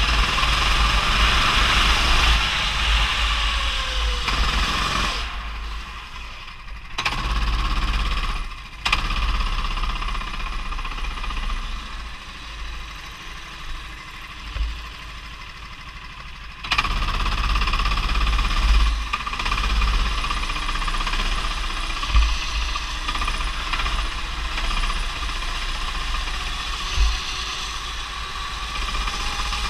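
Rental go-kart's small engine buzzing hard as the kart is driven round the track, over a constant deep rumble of wind and vibration on the kart-mounted camera. The engine falls back twice, briefly about a fifth of the way in and then for several seconds through the middle, and comes back sharply just past halfway, with a few short knocks along the way.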